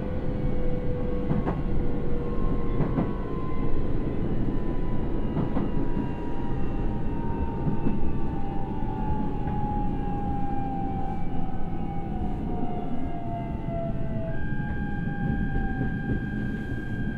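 Interior running sound of a JR East E129 series EMU braking, its Toyo Denki IGBT-VVVF inverter and MT75 traction motors whining in a slowly falling pitch over the rumble of the wheels. This is rail that has not been ground, so there is no grinding roar. There are a few faint clicks early on, and about 14 seconds in the falling whine gives way to a steady higher tone.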